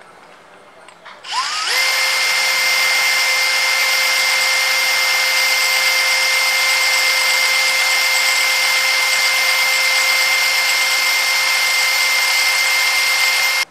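Cordless drill spinning a Yamaha Axis 90 clutch part while a hand file is held against it, the file scraping the metal down flat. The drill is stopped at first, spins up with a rising whine about a second and a half in, runs at a steady pitch, and cuts off abruptly at the end.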